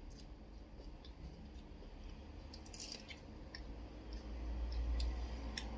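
Close-up eating sounds: chewing raw lalapan vegetables, with a few scattered crisp crunches and clicks.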